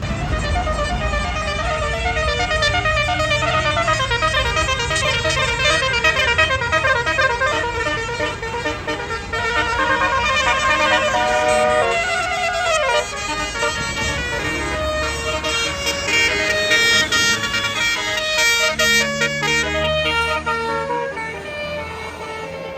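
A bus's basuri telolet horn playing a fast melody of several horn tones at once, the tune changing about halfway through, over a low engine rumble.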